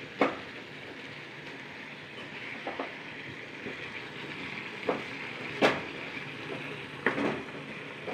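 Onion-tomato masala frying in oil in a pan with a steady sizzle, the bhuna stage where it browns and starts to release its oil. A metal ladle stirring it knocks and scrapes against the pan five times, loudest a little past the middle.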